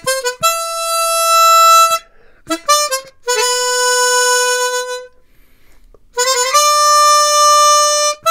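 Hohner ACE 48 12-hole chromatic harmonica being played: three short phrases, each a quick run of notes ending on a long held note, with brief pauses between them.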